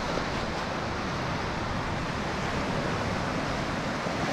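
Steady, even rush of sea surf washing over a rocky shore, mixed with wind.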